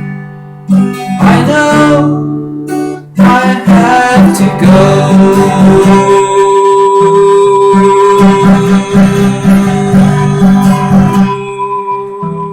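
Acoustic guitar strummed, with singing and a long held note in the middle that thins out near the end.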